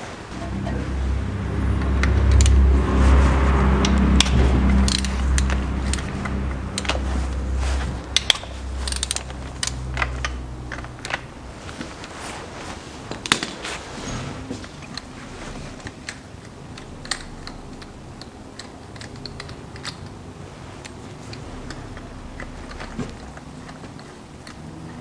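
Scattered metallic clicks and ticks of a ratchet with an extended 12 mm socket working the mounting bolts of a Nissan Murano Z51's external CVT oil filter. Under them, a low steady hum is loudest for the first ten seconds or so and then fades.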